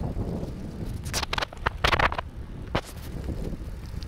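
Riding a bicycle along a paved road: wind noise on the microphone, with sharp clattering rattles from the bike about a second in, just before two seconds, and once more near three seconds.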